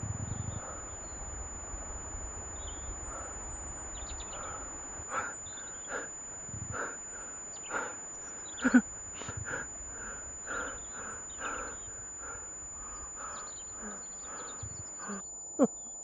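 A series of short animal calls, repeating roughly once or twice a second over a steady outdoor hiss, with one louder call about halfway through.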